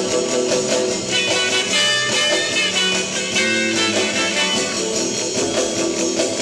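Background music: an instrumental late-1950s rock and roll recording with guitar prominent.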